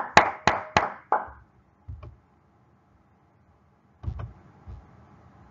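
Hand claps, about four in quick succession in the first second, followed by a few soft thumps and a click.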